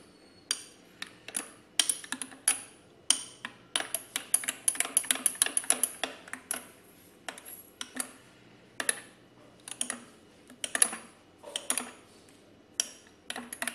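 Metal spoon clinking against a cup while stirring frozen whipped coffee into hot milk: irregular sharp clinks, with a fast run of them a few seconds in and sparser ones after.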